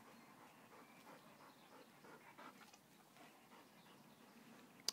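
Near silence, with faint panting from a Belgian Malinois dog.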